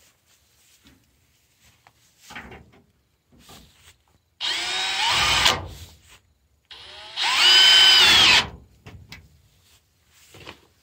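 Red Milwaukee cordless drill driving a screw through corrugated metal sheeting into a wooden frame, in two runs. Each time the motor whines up in pitch and then holds: the first run lasts about a second, and after a short pause the second starts softly and then runs full for about a second and a half.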